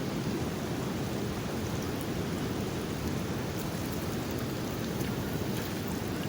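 Fast-flowing floodwater of a swollen river rushing past, a steady, even noise.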